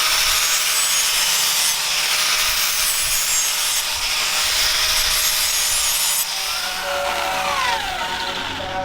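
Steel being worked with a power abrasive tool: a steady rasping hiss, joined about six seconds in by whining tones that sweep up and down.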